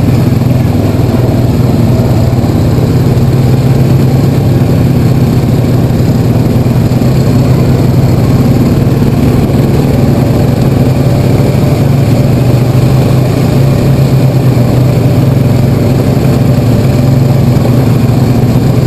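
ATV engine running steadily as the quad rides along a rough, rocky dirt trail.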